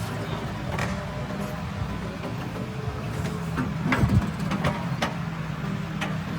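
Kobelco excavator's diesel engine running steadily, with several short sharp knocks over it.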